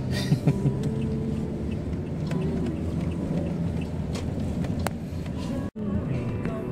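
Steady rumble of a car driving, heard from inside the cabin: engine and road noise. The sound drops out for an instant near the end.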